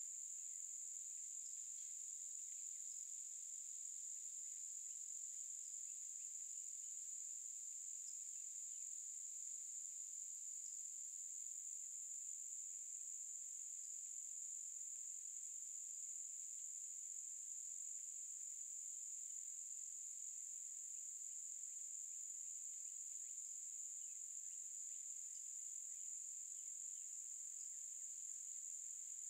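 Insects trilling in one steady, unbroken high-pitched drone, with a few faint short chirps now and then.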